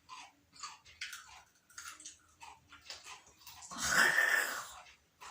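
A person biting and chewing a raw green chili, with short crisp crunching clicks, then a loud breathy hiss of air about four seconds in.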